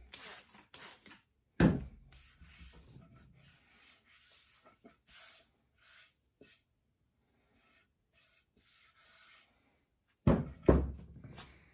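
Trigger spray bottle squirting water onto an end-grain wooden cutting board in a few quick hisses, wetting it to raise the grain before the final sanding. A hand then rubs over the wet surface, with a sharp wooden knock about a second and a half in and two more near the end as the board is set down on the bench.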